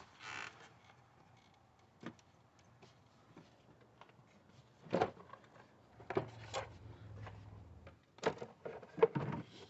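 Plastic air filter box lid being unclipped and lifted off by hand: scattered light clicks and knocks, the loudest about five seconds in and a cluster near the end.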